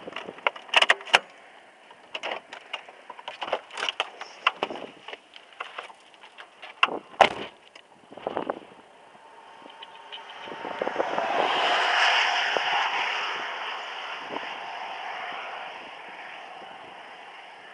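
Irregular clicks and knocks of handling inside a car, then a rushing noise that swells and fades over several seconds in the middle, like a vehicle passing or a gust of wind.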